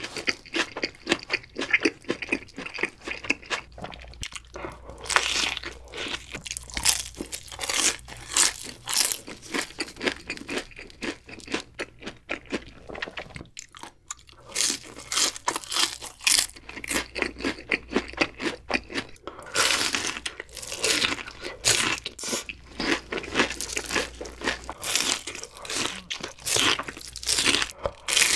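Close-miked crunching and chewing of crispy deep-fried breaded food: dense, sharp crackles in repeated bouts, with brief pauses about four and fourteen seconds in.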